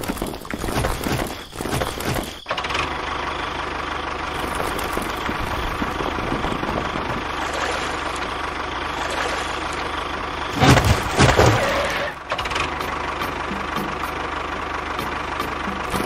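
Tractor engine idling steadily after a couple of seconds of uneven noise at the start, with a louder, rougher surge lasting about a second and a half around eleven seconds in.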